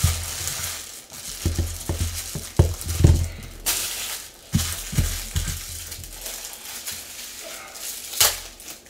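Trading cards and their plastic wrappers being handled by hand: crinkling and rustling with scattered soft knocks against the table.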